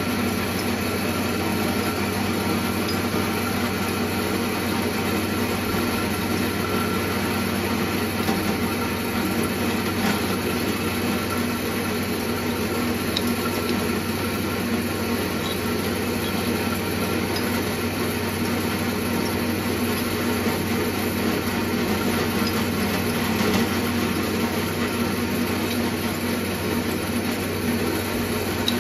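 Drill press running steadily, its motor and spindle turning a chuck on a Morse taper 2 arbor held in with retaining compound, while the cutter works along the edge of an aluminium plate. The spindle is being run to test whether the glued-in taper holds, and it does not come loose.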